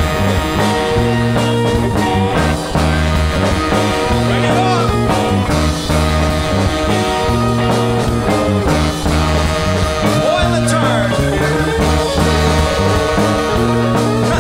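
Live funk band playing an instrumental passage, with drums, electric bass, organ, electric guitar and a horn section of trumpet and saxophones.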